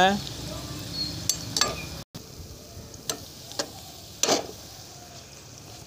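Sliced onions frying in hot oil in a metal karahi, a steady sizzle, with a slotted metal spoon scraping and knocking against the pan several times as they are stirred. The onions are at the browning stage.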